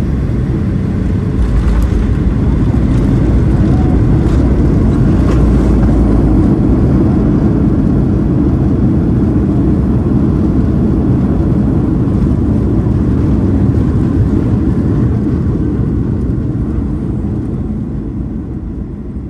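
Boeing 737 MAX landing roll heard from inside the cabin: a deep roar of engines and runway rumble. It swells about a second and a half in, then slowly dies away as the aircraft slows.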